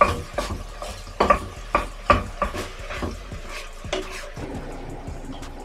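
A spoon knocking and scraping against a stainless steel pot while minced beef is stirred and broken up in it, a string of sharp clicks for about four seconds. After that the meat sizzles quietly in the hot pot.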